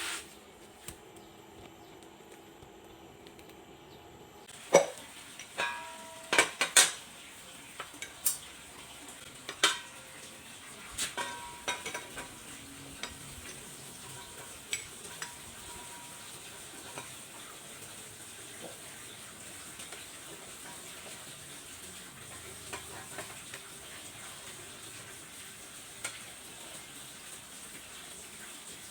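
Metal parts and hand tools clinking and clanking: a run of sharp knocks and clinks in the first half, then only scattered light taps over a steady faint hiss.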